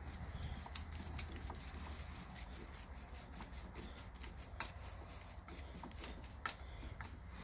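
Faint rubbing and irregular small metallic clicks of a bolt being turned by hand into a lawn-tractor engine block to fasten a ground wire, an 8 mm bolt forced into a 5/16-inch thread. Two sharper clicks come about four and a half and six and a half seconds in.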